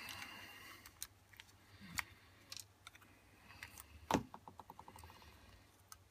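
Small plastic and metal parts of a solder paste dispenser clicking and knocking as they are handled on a workbench. The loudest knock comes about four seconds in, followed by a quick run of fading clicks.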